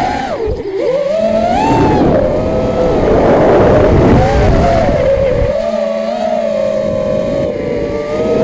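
FPV drone's electric motors and propellers, heard close from its onboard camera: a high, multi-toned whine that rises and falls with the throttle. A rush of air noise swells through the middle, and the pitch sags near the end.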